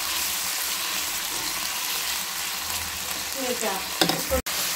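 Raw boneless chicken pieces sizzling steadily in hot oil in a nonstick wok as they start to fry, stirred with a silicone spatula. The sound cuts out for an instant near the end.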